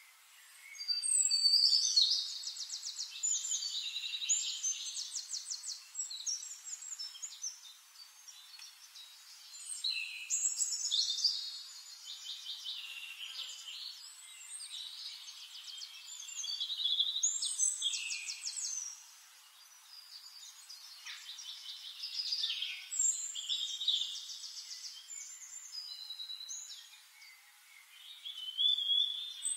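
Songbirds singing: bouts of rapid, high trills and chirps a few seconds long, about five of them, with softer chirping in between.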